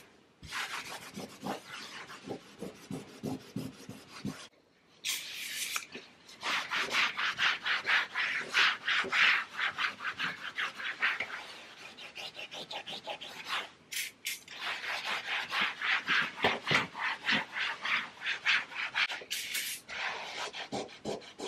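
Microfiber cloth scrubbing a painted wall in quick, repeated back-and-forth strokes, pausing briefly twice. A short hiss comes about five seconds in and again near the end.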